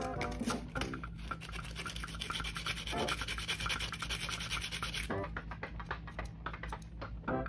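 Sandpaper scrubbing back and forth on a small polystyrene model-kit part: rapid scratchy strokes that thin out about five seconds in.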